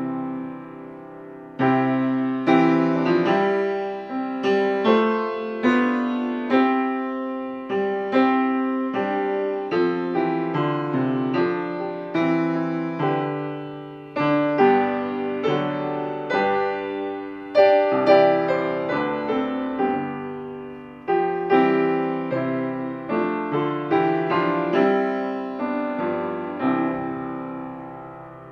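A hymn played on piano in full chords, phrase by phrase, each chord fading after it is struck, with short breaks between phrases.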